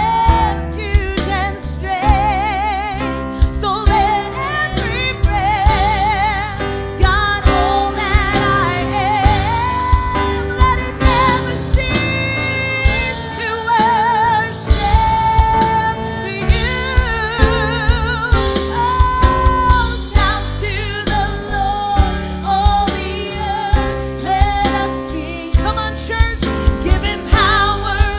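Live worship band playing a gospel-style song: singers hold long notes with a wide vibrato over keyboard and electric guitar, with a steady beat of short hits underneath.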